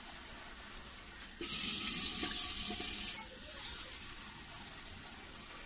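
Water running for about two seconds, starting just over a second in, over the quiet squish of a hand mixing flour and water into a soft dough in a plastic bowl.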